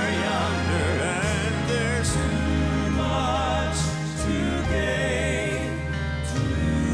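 Male gospel vocal quartet singing with a live band, the voices holding long notes with vibrato over a steady low accompaniment and a few cymbal hits.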